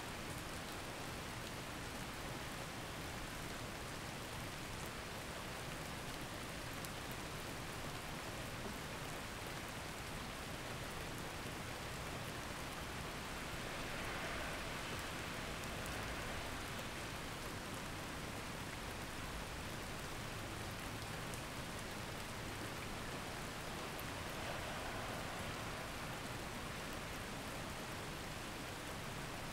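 A steady, even wash of rain-like noise with no distinct drops or knocks, swelling slightly twice.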